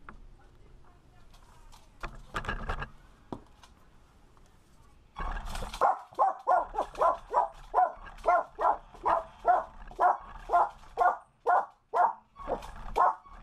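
A dog barking rapidly and repeatedly, about three barks a second, starting about five seconds in.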